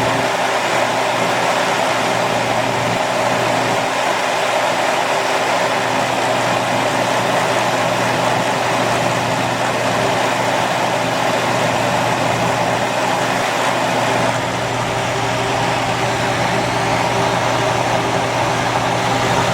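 Westinghouse MED40P3 40-pint dehumidifier running loud and steady: a fan rushing air over the low hum of its compressor.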